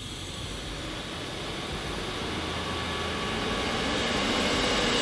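Small electric air pump running steadily, inflating an electric unicycle's freshly fitted inner tube, its sound growing gradually louder as it works.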